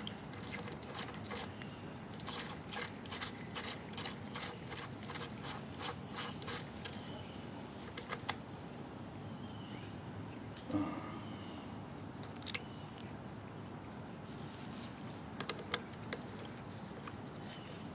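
Light metallic clicking as a pulley installer's stud is threaded by hand into a power steering pump shaft, a run of quick clicks for the first several seconds, then a few separate clinks as the bearing, washer and nut are set on the stud.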